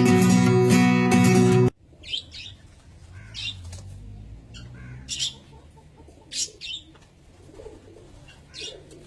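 Guitar music that cuts off abruptly less than two seconds in, followed by a quieter stretch with short, high bird sounds about every second.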